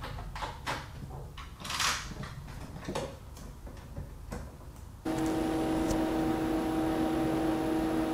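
A few clicks and knocks of cables and connectors being plugged into the back of an HP Visualize C200 workstation. About five seconds in, the workstation powers on: its cooling fans start abruptly and run with a steady whir and hum.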